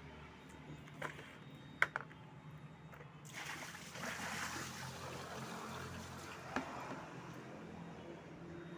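A few hard knocks, like a scoop or container bumping, then from about three seconds in water pouring and splashing out steadily as the water feature is bailed out, with one more knock near the end.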